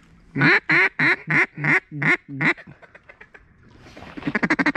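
Hunter's duck call blown in a run of about seven loud quacks, then a fast chattering feed call near the end.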